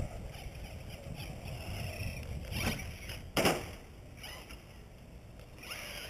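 Traxxas Slash 2WD RC truck's electric motor whining faintly, its pitch rising and falling with the throttle, with two sharp knocks a little under a second apart just past the middle, the second the loudest.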